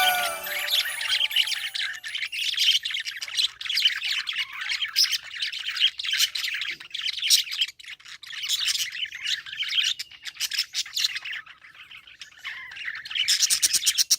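Budgerigars chirping and chattering without a break, a rapid high twittering mixed with sharper squawks. It thins out for a moment past the ten-second mark, then grows busier again near the end.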